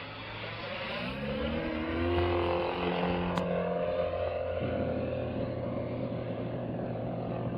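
Engine and propeller of a radio-controlled Pitts biplane in flight, growing louder and rising in pitch over the first two seconds, then running at a steady note.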